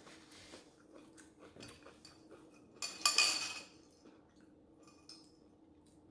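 Eating utensil clinking and scraping against a dish, with small clicks and one louder ringing scrape about three seconds in.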